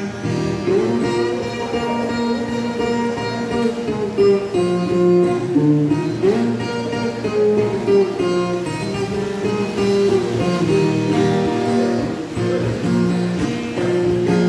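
Viola caipira, the ten-string Brazilian country guitar, played solo: a plucked instrumental melody with strummed chords.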